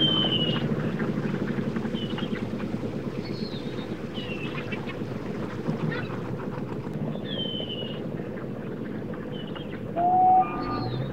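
Boat engine running low and steady, with birds calling in short, falling whistles every second or two. About ten seconds in a loud, briefly held tone sounds.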